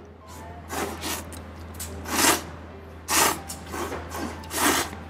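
A man slurping thick, soupless noodles in several loud, noisy pulls about a second apart.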